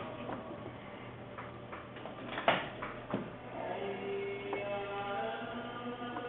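A few sharp clicks of small tools working on the opened vape device, as its battery is disconnected, over faint background music that becomes more noticeable in the second half.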